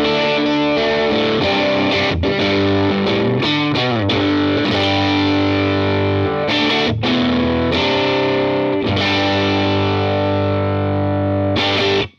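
Electric guitar played through a GizmoAudio Sawmill Jr. MOSFET overdrive pedal with the drive turned all the way up: overdriven chords ringing out in phrases with a few short breaks, stopping just before the end.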